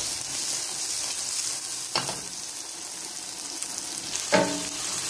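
Onions, garlic, ginger and chilies sizzling in butter in a non-stick wok as they are stirred with a wooden spatula. The spatula knocks against the pan twice, about two seconds in and more loudly near the end, with a brief ring.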